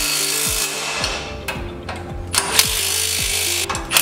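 Background music with a steady beat, over a cordless drill driving a socket onto the winch cradle's nuts and bolts, running in spurts that start and stop.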